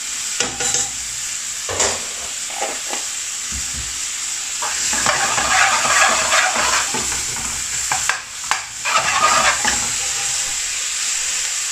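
Chopped onion and garlic sizzling in oil and ghee in an aluminium frying pan, with a metal spoon scraping and clicking against the pan as it is stirred. The sizzle swells for a couple of seconds midway as the pan is shaken.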